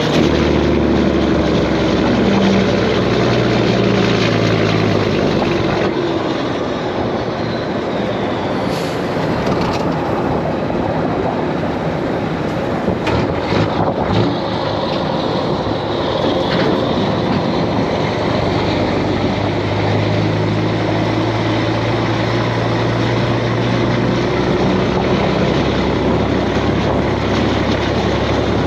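Semi truck's diesel engine running under a steady haze of road and wind noise; the engine note drops about six seconds in and comes up again later, with a few brief knocks in the middle.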